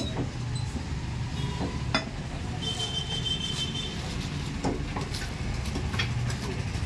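A few sharp knocks of a butcher's knife on a wooden chopping block as mutton is cut, spaced a second or more apart, the first the loudest, over a steady low rumble.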